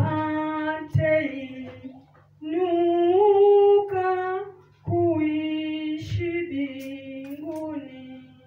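A woman singing solo and unaccompanied into a handheld microphone, in three phrases with long held notes. A low steady hum runs underneath.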